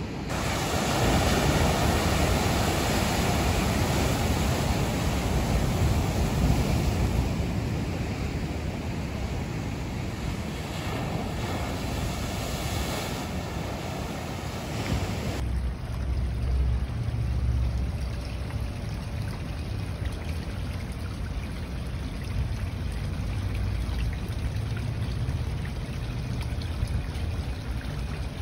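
Ocean waves breaking and washing over shoreline rocks, a steady rush of surf, with wind rumbling on the microphone. About halfway through it cuts to a quieter stretch of running water and wind.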